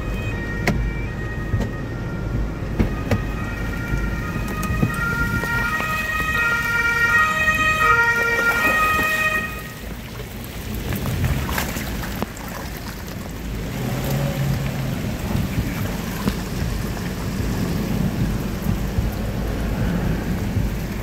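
Steady rushing, rumbling noise of water and wind. For the first nine seconds or so a string of held high tones at several pitches plays over it, stepping from one pitch to another, then stops suddenly.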